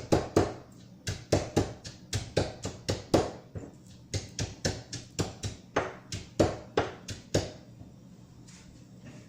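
A quick series of sharp kitchen knocks, about three a second, with a short pause in the middle and stopping about seven and a half seconds in.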